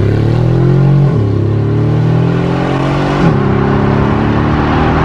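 Mercedes-AMG G63's 5.5-litre twin-turbo V8 with a Brabus exhaust, accelerating hard away. The pitch rises steadily and drops twice on upshifts, about a second in and about three seconds in.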